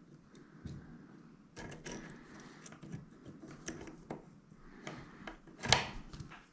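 Small metallic clicks and scraping of a dimple lock pick being worked in a lock cylinder, with one louder sharp click near the end.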